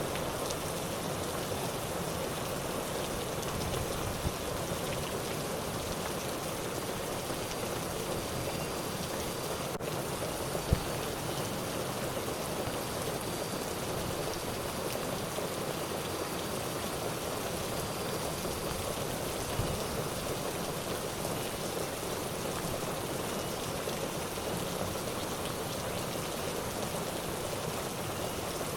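Steady hiss of water, with one sharp click about ten and a half seconds in.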